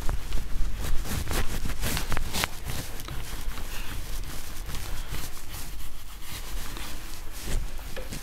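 Whiteboard duster rubbing and wiping across a whiteboard in quick back-and-forth strokes, busiest in the first couple of seconds, over a steady low hum.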